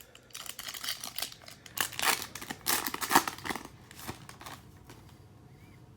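Crinkling and tearing of a foil trading-card pack wrapper being opened by hand, a run of irregular rustles that dies away about four and a half seconds in.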